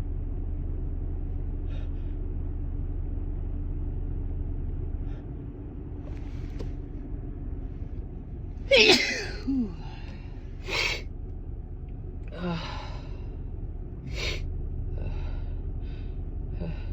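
A woman's big dust-allergy sneeze about halfway through, followed by gasping breaths and sniffles. A low steady rumble from the car runs underneath.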